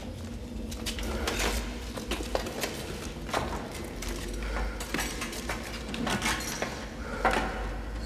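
Rubble and debris being shifted by hand: irregular scrapes, knocks and clatters over a low steady hum.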